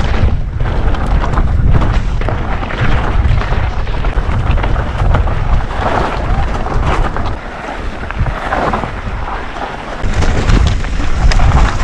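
Wind buffeting a GoPro microphone on a moving e-mountain bike, a heavy low rumble over the hiss of tyres on a dirt trail, with scattered knocks and rattles from riding over rough ground. It eases off for a couple of seconds past the middle, then builds again.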